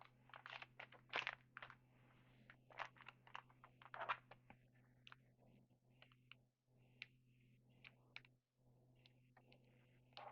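Faint, irregular clicks and crinkles of trading cards and their packaging being handled and flicked through, over a steady low electrical hum.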